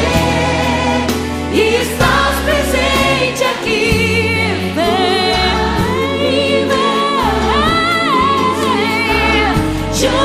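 Gospel song with a woman's lead vocal and backing choir over a band with steady bass notes.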